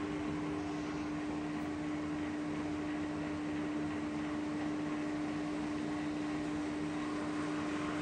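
S&T TIPL-4 precision tool room lathe running with the carriage on longitudinal power feed: a steady mechanical hum with a strong, constant tone.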